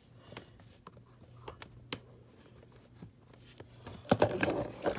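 Faint scattered clicks over a low steady hum. About four seconds in comes a louder burst of knocks and rustling: handling noise as the recording phone and things on the desk are moved about.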